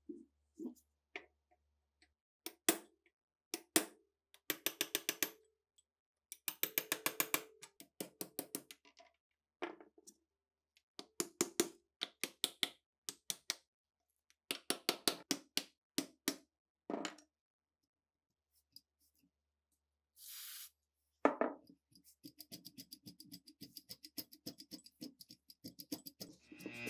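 Hammer blows on a drift punch driven against the rusted barrel and receiver parts of a PTRD anti-tank rifle, coming as quick runs of sharp taps with short pauses between them. Guitar music comes in over the last few seconds.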